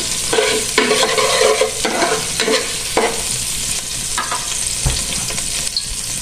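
Minced garlic sizzling in hot cooking oil in a pan, a spatula scraping and stirring it for the first three seconds or so; after that, a steady sizzle.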